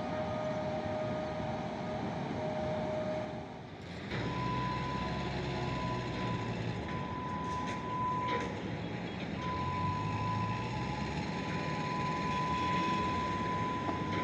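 Steady distant rumble of vehicle traffic around a railway yard, with a thin, steady high-pitched tone held for seconds at a time; the tone shifts higher about four seconds in and drops out briefly near the middle.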